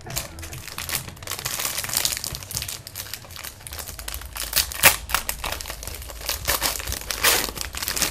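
Trading-card pack wrappers crinkling and being torn open by hand, a run of crackles with sharper snaps about five seconds in and again past seven.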